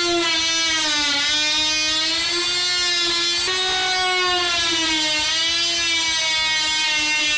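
Corded oscillating multi-tool cutting through drywall: a steady, high motor-and-blade whine whose pitch sags about a second in and again near the end as the blade bites into the board, recovering in between.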